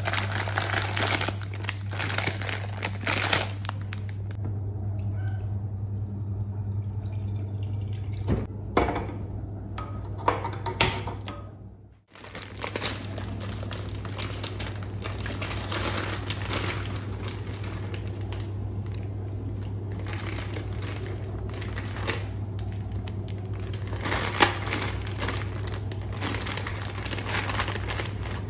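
Plastic instant-ramen packet crinkling and rustling as it is torn open and handled and the noodle block is pulled out, over a steady low hum. The sound cuts out briefly about midway.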